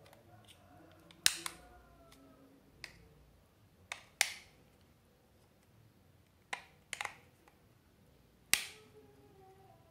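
Plastic snap clips of a Samsung B310E phone's stiff back casing cracking loose one by one as a metal pry tool works along the seam: about nine sharp snaps, the loudest about a second in, about four seconds in and near the end.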